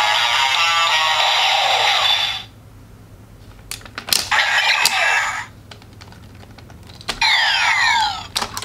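Kamen Rider W CSM Double Driver toy belt playing its electronic sound effects and music, which cut off about two seconds in. Then come plastic clicks and a short electronic sound as the driver's wings are folded shut, a sweeping electronic effect with falling tones near the end, and clicks as a Gaia Memory is pulled from its slot.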